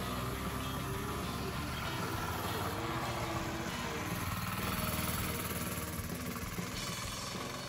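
Go-kart's small gas engine running as the kart drives off, its note shifting as the throttle changes and fading near the end as it moves away.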